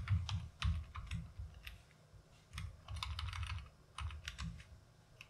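Typing on a computer keyboard: irregular runs of key clicks with short pauses, one about two seconds in.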